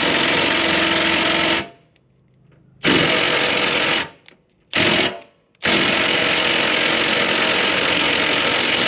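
Power impact tool, such as an impact wrench, running in four bursts: the longest lasts about three seconds near the end, with short pauses between them. It is undoing the 13 mm bolts that hold the car's underbody plate, some of them stripped.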